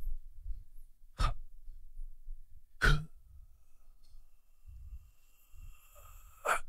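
A person making breathy, cough-like vocal noises close up into a microphone: three sharp bursts, about a second and then three and a half seconds apart, with low thumps between them and a faint thin held tone in the second half.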